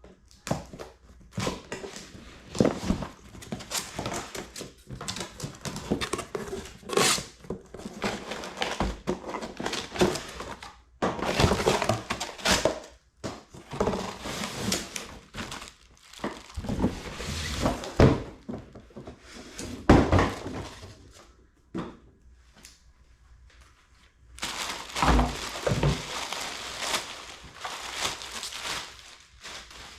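A cardboard box and its packaging being opened and handled: repeated thunks and knocks with bursts of crinkling and rustling, broken by short quiet pauses.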